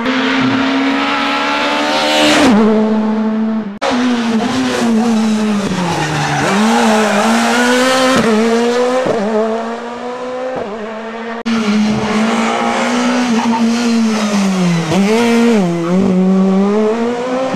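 Škoda Fabia S2000 rally car's four-cylinder engine revving hard, its pitch dipping as it brakes and downshifts for bends and climbing again as it accelerates, with tyre squeal. The sound changes abruptly twice, about four and eleven seconds in, where separate passes are cut together.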